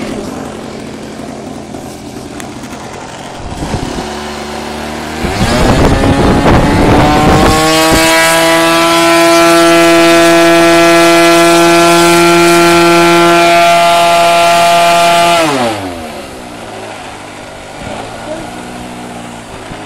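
O.S. Max .75 two-stroke glow engine of an RC model plane, held on the ground, idling, then opened up about five seconds in, rising over a couple of seconds to full throttle. It holds a high, steady pitch for about seven seconds, then is throttled back sharply to idle near the end: a full-power check before launch.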